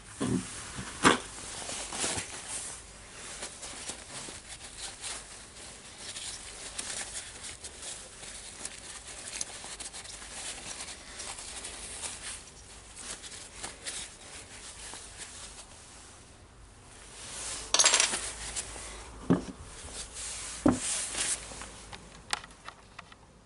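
Paper towel rubbing and wiping over plastic power-tool parts, with scattered light clicks and knocks as the pieces are handled and set down. A louder rustle comes about eighteen seconds in.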